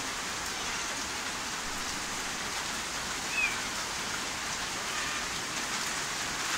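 Steady rain falling, an even hiss of rain without a break.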